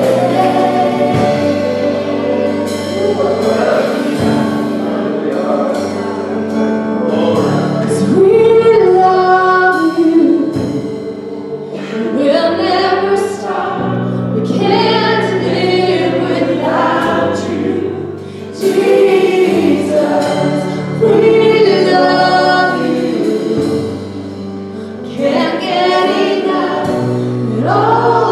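Live church worship music: women's voices singing a worship song over steady keyboard chords and band accompaniment.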